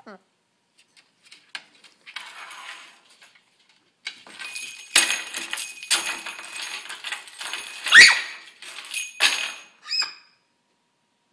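Small bells being knocked and jingled by a pet bird playing with them: a run of clinks with a steady high ringing, starting about four seconds in, with one loudest strike near eight seconds.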